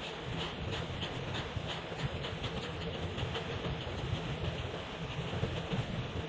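Felt-tip marker scratching back and forth on paper in quick coloring strokes, about four strokes a second.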